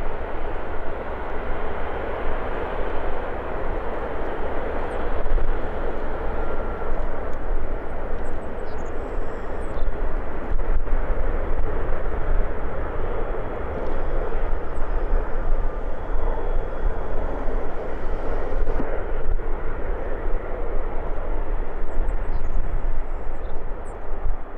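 China Southern Airbus A380-841 taxiing, its four Rolls-Royce Trent 900 turbofans running at idle thrust: a steady rush of jet engine noise over a low rumble.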